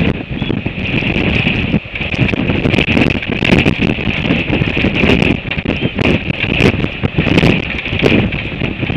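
Gale-force wind buffeting the nest-camera microphone in loud, gusting rumbles, with a steady hiss and scattered crackles on top.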